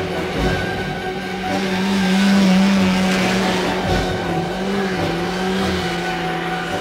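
Several snowmobile engines whining at speed in a steady drone, which swells about two seconds in and then eases off.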